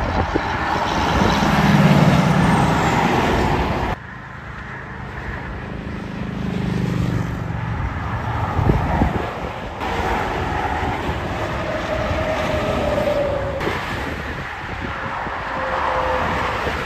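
Highway traffic passing below: semi-trucks and cars, a steady rumble of engines and tyre noise on the road. A deeper drone in the first few seconds is a truck going by. The sound changes abruptly a few times where separate clips are joined.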